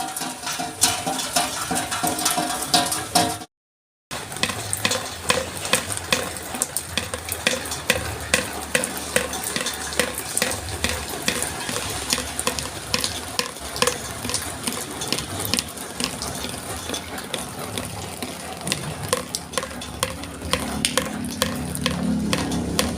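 Plucked-string music for the first few seconds, then a brief cut to silence. After that comes a dense, irregular patter of raindrops striking hard surfaces, many sharp ticks a second.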